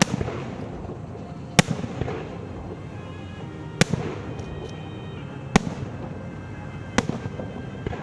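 Aerial firework shells bursting: five sharp bangs one to two seconds apart, each followed by a spray of smaller crackles, with music playing underneath.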